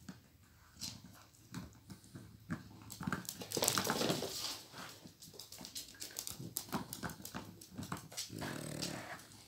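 Pit bull and miniature pinscher tussling over a rubber chew toy: clicks of teeth mouthing the toy and bedding rustle, louder for a moment about three to four seconds in, with a low growl near the end.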